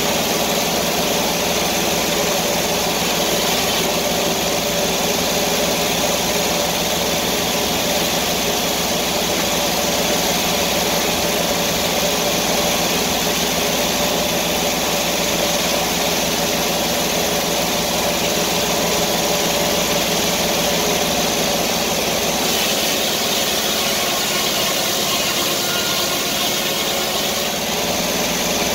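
Sawmill engine running steadily at an even speed.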